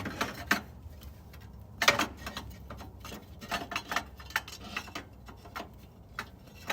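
Light metallic clicks and clinks of burner heads being fitted back into a 1904 Ruud instant water heater, with a sharper knock about two seconds in.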